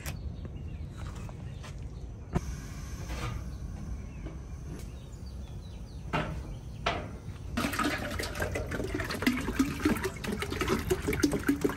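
Water glugging and splashing as it is poured from a plastic gallon jug into a large metal stockpot, starting about two-thirds of the way through. Before it there is quieter handling noise with a single knock.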